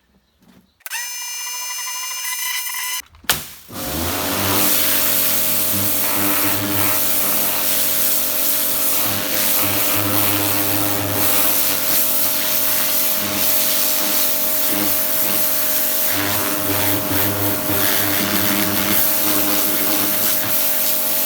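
Kärcher K5 pressure washer running, its jet blasting paving slabs through the rotating hard-surface nozzle with a steady hiss over a constant motor hum. It starts up with a click about three seconds in, after a brief high whine.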